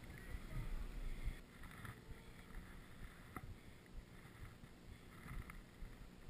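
Faint wind rumble on a helmet-mounted camera's microphone, heavier for the first second or so and then lower, with one sharp click a little past three seconds in.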